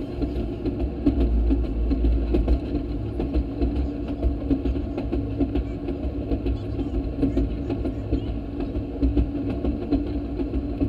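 Railroad speeder (track motorcar) running along the rails, its small engine going steadily with a low rumble and no change in speed.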